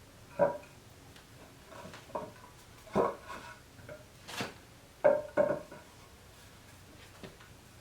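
Heavy wooden table-base pieces knocking and clunking against each other as they are handled: about five sharp wooden knocks, with fainter taps between.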